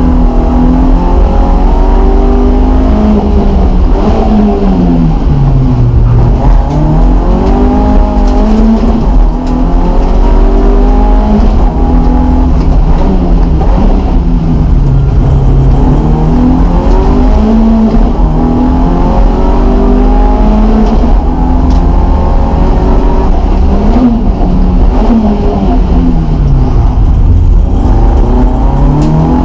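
BMW E30 318is's four-cylinder engine from inside the cabin, driven hard through the gears: the revs climb, then drop sharply and build again three times, about six seconds in, around fifteen seconds in and near the end, as the car slows for corners and accelerates out.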